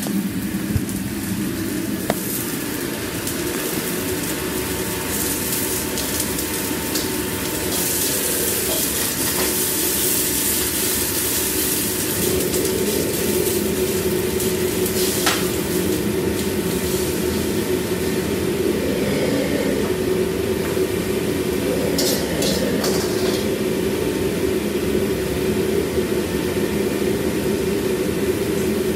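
Commercial gas wok range running with the kitchen extraction: a steady rushing noise, with food sizzling in a wok and a few sharp clinks of metal utensils against the pans.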